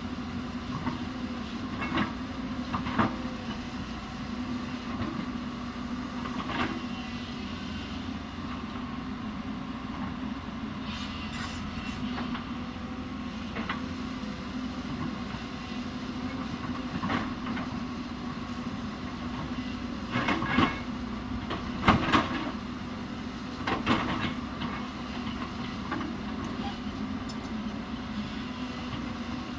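Hyundai 220 excavator's diesel engine running steadily while it digs, with irregular clanks and knocks from the working machine, loudest a little after twenty seconds in.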